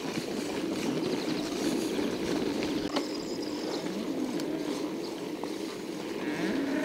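A 1991 Scott Montana bicycle being ridden: tyres rolling and the drivetrain running steadily, the chain squeaking, dry and dusty.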